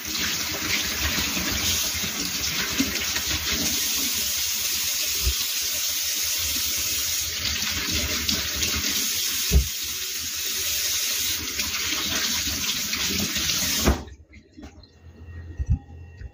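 Kitchen tap running into a stainless steel sink as corn cob pieces are rinsed under the stream, with one knock partway through. The water cuts off sharply about two seconds before the end, followed by a few light knocks.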